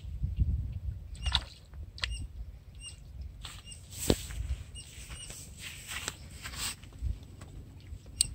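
Small birds giving short, repeated chirps over a low wind rumble on the microphone. Just after four seconds a single sharp splash-like snap as a hooked red-bellied pacu is swung out of the water, followed by rustling and flapping in the grass.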